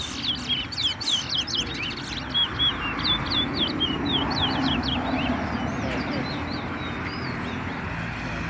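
Caged songbirds in a bird-whistling race singing fast runs of short, sweeping whistled notes, densest in the first half and thinning out after about six seconds.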